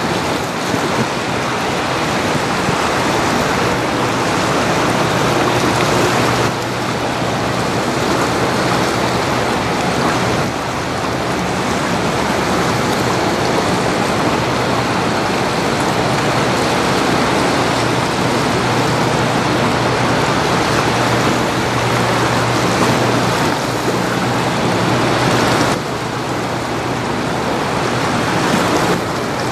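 Steady rush of water churned along the hull of a large cargo ship passing close by, with the ship's low engine drone underneath.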